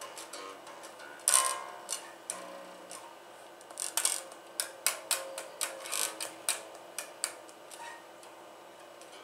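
Electric bass played unamplified: the bare strings give dry clicks and thin twangs as they are plucked and hit the frets, with no deep bass notes. The notes come unevenly, one sharp pluck about a second in and a quicker run of them in the middle.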